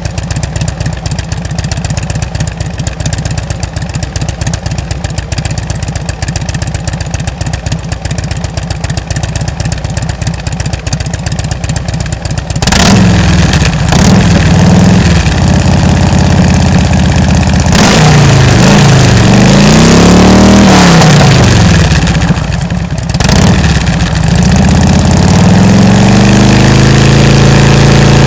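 2007 Harley-Davidson Ultra Classic's Twin Cam 96 V-twin through Rush slip-on mufflers with 1.75-inch baffles, idling steadily. Just under halfway it gets suddenly louder, and it is revved up and down several times, the pitch rising and falling.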